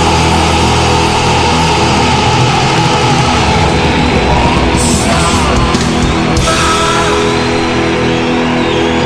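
Loud rock music playing, in the heavy metal style.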